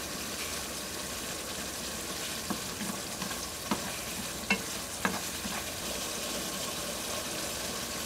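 Tomato sauce sizzling steadily in a wok around pieces of fried tofu, while wooden chopsticks turn the tofu, giving a few sharp clicks against the pan between about two and five seconds in.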